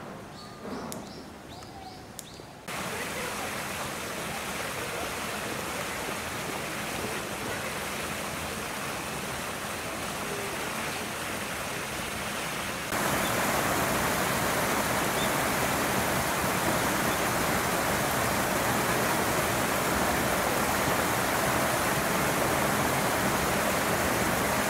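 Steady rushing noise like running water or hiss, starting suddenly about three seconds in and stepping louder about halfway through.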